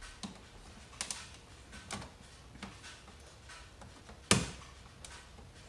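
Plastic retaining tabs of a VW front emblem clicking as the badge is pressed by hand onto its grille mount on a Golf GTI MK7: a few light clicks, then one sharper, louder snap about four seconds in as a tab seats.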